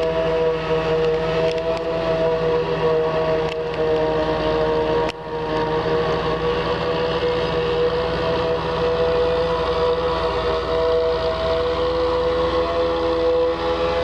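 Liquid manure tanker truck running steadily while spreading, its engine rumble under a steady two-toned whine.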